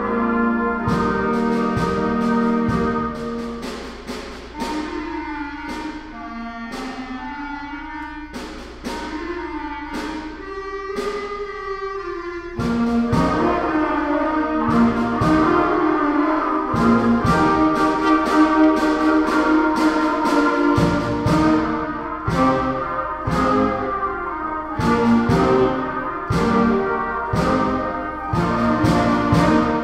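School band playing: saxophones, clarinets, trumpets and trombone holding chords over regular cymbal and drum strokes from a drum kit. It drops to a softer passage a few seconds in, then comes back in loud about twelve seconds in.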